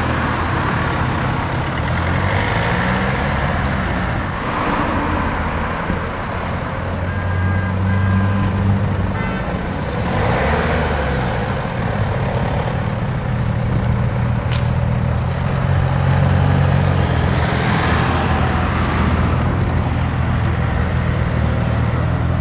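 Several cars driving past one after another, engines running with a steady low drone. Tyre and engine noise swells as each car passes, and the engine note rises at times as cars pull away.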